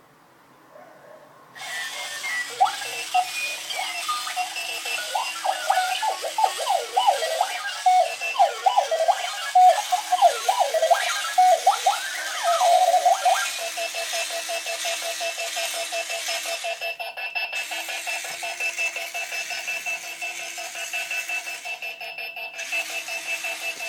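Moving alarm clock going off. It starts about two seconds in with warbling, sweeping electronic beeps, then at about thirteen seconds changes to a fast, steady, repeating beep.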